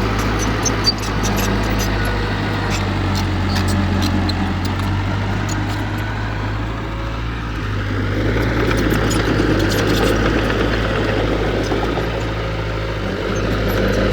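Diesel engine of heavy earthmoving machinery running steadily, with scattered light clicks and clanks over the hum.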